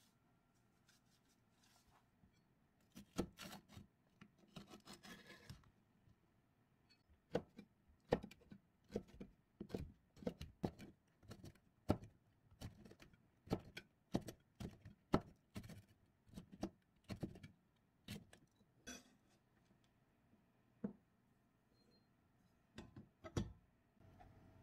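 Chef's knife dicing a red chili pepper on a plastic cutting board: a steady run of short, sharp knocks as the blade strikes the board, a couple to a few per second, with a pause before a few last strokes near the end.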